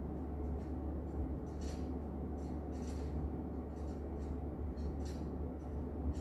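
Steady low hum with faint, scattered light clicks and rustles between pistol shots.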